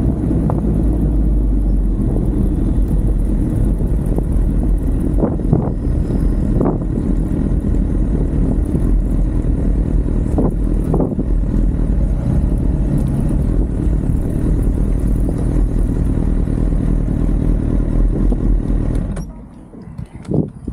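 Honda CBR1000RR Fireblade's inline-four engine running as the motorcycle is ridden slowly, heard from an onboard camera as a heavy, steady rumble. The rumble drops away suddenly about a second and a half before the end.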